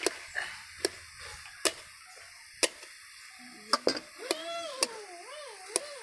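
Metal ladle tapping against an aluminium kadai while a vegetable curry is stirred, a sharp tap roughly once a second. From about three and a half seconds in, a wavering call rises and falls in pitch over the taps.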